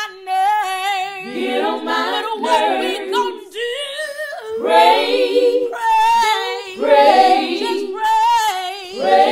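Women's voices singing a cappella, several voices layered in harmony, with held notes and vibrato broken by short breaths between phrases.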